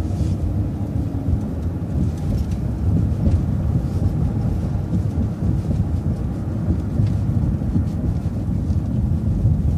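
City transit bus under way, a steady low rumble of engine and road noise heard from inside the bus, with a faint whine that fades out about a second in.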